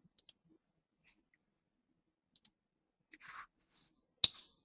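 A quiet pause with a few faint ticks and a soft breath a little after three seconds in, then one sharp, loud click near the end.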